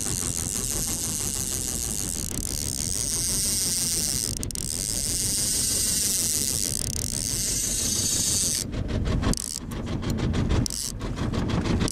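Small wooden boat's engine running at trolling speed under a steady hiss of wind and water. The noise turns choppy, in short bursts, near the end.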